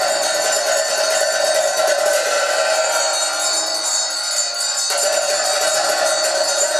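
Tibetan Buddhist ritual music: a rapid, continuous ringing of bells over a strong held tone. The held tone fades a little after two seconds in and comes back abruptly about five seconds in.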